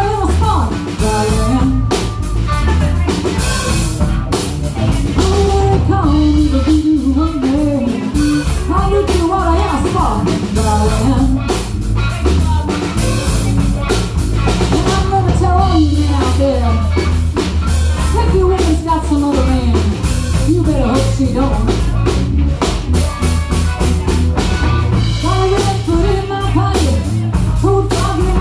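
Live blues-rock band playing: a woman's lead vocal over electric guitar, electric bass and drum kit, amplified through a PA.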